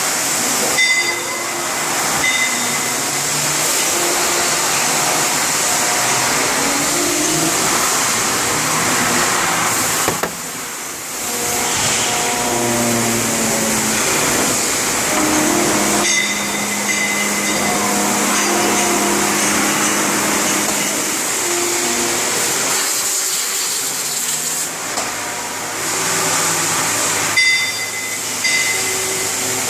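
CNC machine running: a steady hissing whir with short tones that shift pitch every second or so as it moves, and brief dips around 10–11 s and 23–25 s.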